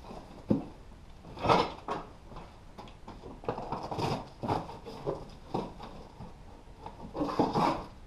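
A cardboard box and its packing being picked up and handled: a sharp knock about half a second in, then scraping and rustling, loudest about a second and a half in and near the end.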